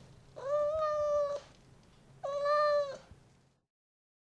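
Domestic cat meowing: two long, even-pitched meows, each about a second long, the second coming about two seconds in.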